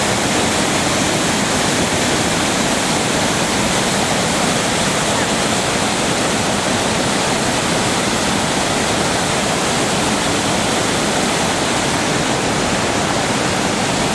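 Waterfall on a river running in full flow: a loud, steady rush of falling water.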